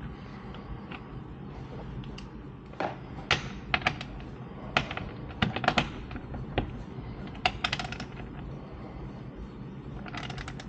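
Irregular sharp clicks and light knocks as hand tools and the bracket parts are worked while the licence-plate bracket is tightened in place, with two short runs of rapid clicks, one about three-quarters through and one near the end.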